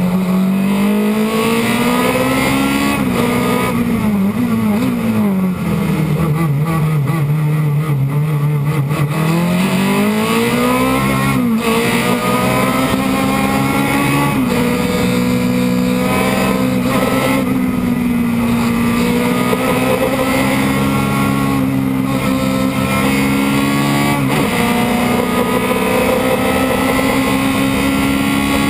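Osella PA9/90 sports-prototype race car's engine heard from its open cockpit while racing. The revs sag and then climb again through a bend in the first third. After that come several quick upshifts, each a sudden drop in pitch followed by the revs climbing again.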